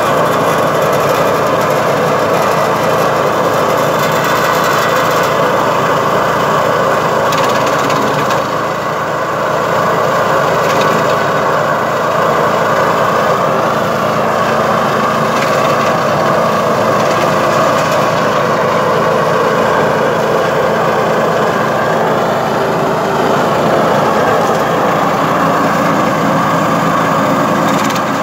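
Drovosek DS-80BD7 garden branch chipper with a 7 hp petrol engine running steadily under load while branches are fed in and chipped. The sound dips briefly about eight seconds in.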